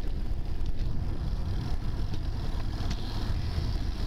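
Wind buffeting the microphone of a camera on a moving road bicycle, a steady low rumble with tyre and road noise underneath and a few faint ticks.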